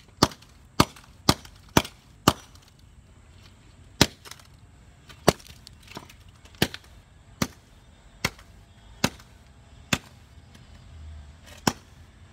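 Hammer blows on an old iPhone lying on asphalt, about a dozen sharp knocks: five quick strikes at the start, then slower, irregular strikes about a second apart, breaking through the phone's glass.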